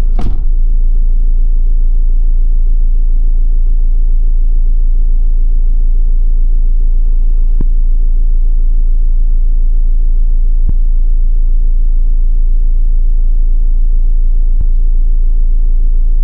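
A car driving on a rough forest track: a steady low rumble, with a few faint knocks.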